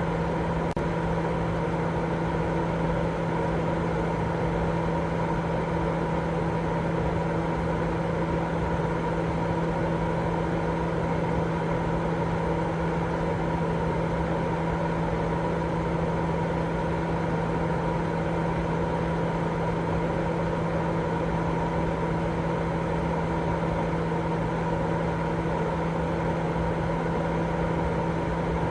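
Continuous baby-sleep white noise: an even, unchanging hiss with a steady low hum running through it.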